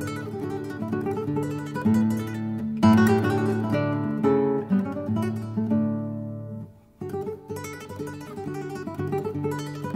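Solo acoustic guitar playing Spanish Baroque guitar music, chords and plucked notes. The playing breaks off briefly about seven seconds in, then starts again.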